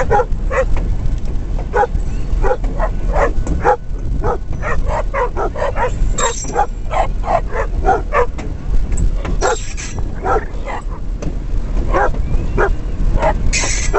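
Dogs barking and yipping again and again, several barks a second, as they run alongside a moving train, over the steady low rumble of the diesel locomotive.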